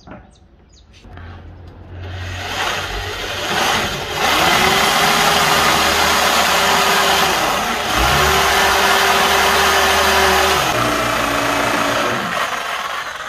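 Corded electric drill running under load, boring into hardwood with a steady motor whine and cutting noise. It stops briefly about eight seconds in, starts again, and runs slower near the end.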